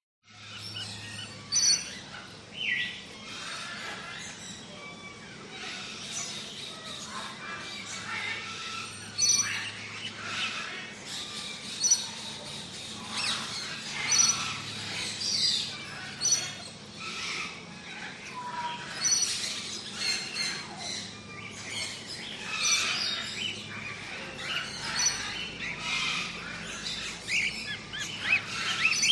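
A chorus of many birds calling over one another: short chirps, whistles and rapid trills, some high notes repeating every second or two. A faint steady low hum runs underneath.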